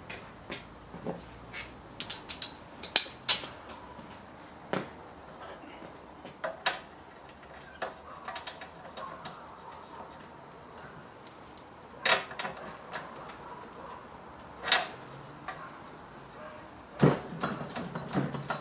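Hand tools clinking and knocking on metal while a lawn mower's spark plug is refitted and its lead pushed back on: scattered light clicks, with louder clanks about 3, 12, 15 and 17 seconds in.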